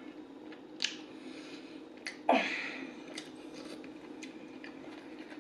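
Quiet eating sounds as curry is spooned into the mouth: faint chewing and small mouth clicks, with one short, louder mouth sound about two seconds in.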